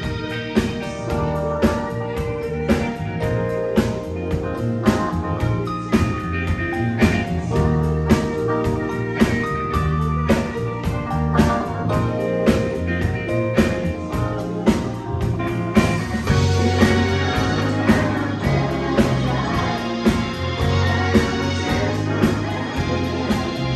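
A live band playing guitar and drum kit to a steady beat. The music thickens about two-thirds of the way through.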